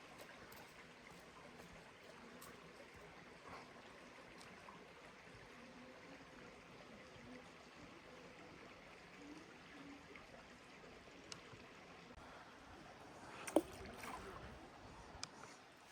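Faint, steady rush of flowing stream water, with a few light clicks and one sharp knock about three-quarters of the way through.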